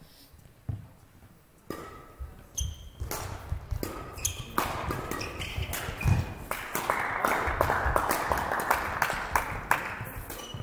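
Badminton rally: rackets smacking the shuttlecock back and forth, with the players' shoes squeaking and thudding on the court floor, the hits coming thick and fast from a few seconds in.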